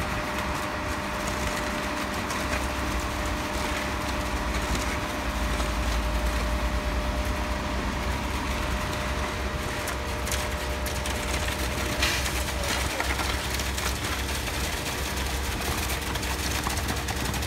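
Truck-mounted concrete boom pump and cement mixer truck running during a concrete pour: a steady, low diesel drone with a constant hum.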